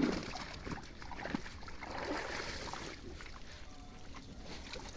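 Water splashing and trickling in a pond, with scattered small knocks.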